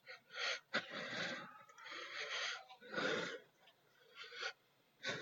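A person breathing heavily: about five loud, rough breaths in and out, with short gaps between them.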